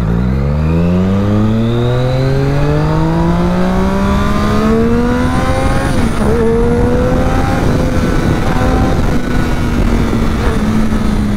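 Triumph Daytona 675R's inline three-cylinder engine, breathing through a Scorpion exhaust, accelerating hard. The pitch rises steadily for about six seconds, dips briefly, then holds high and keeps climbing slightly.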